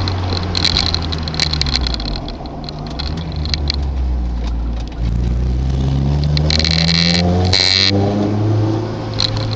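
Car engine running under way. About five seconds in, the note drops and then climbs steadily for about three seconds as the car accelerates, with two short bursts of high-pitched noise near the top of the climb.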